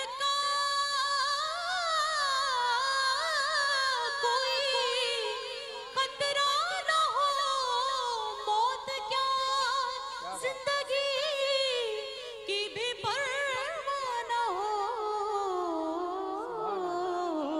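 A woman singing a naat (Urdu devotional song) into a microphone in long, ornamented held notes that waver and slide between pitches, her line sinking lower near the end.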